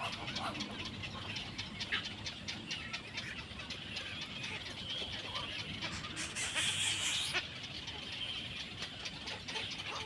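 Egret chicks begging at the nest: a fast, continuous ticking chatter, with a louder burst from about six to seven and a half seconds in.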